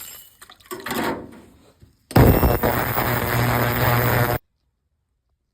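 Small metal carburetor parts clinking and rattling as they go into the cleaner, then an ultrasonic cleaner running with a loud, steady buzz for about two seconds before it cuts off suddenly.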